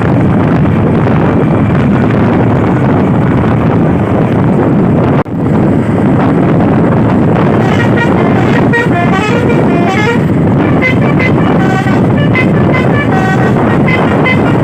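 Truck's Basuri V3 telolet musical horn playing quick runs of short rising and falling notes over loud wind and road noise. The horn comes in about halfway through, after a brief drop in the sound.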